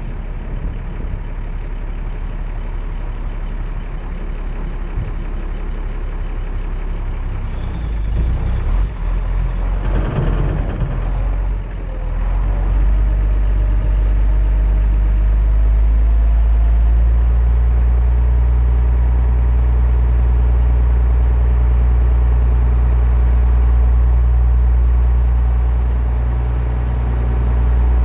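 Classic Mercedes-Benz car's engine idling as a steady low hum that gets louder about twelve seconds in. A brief rushing noise comes around ten seconds in.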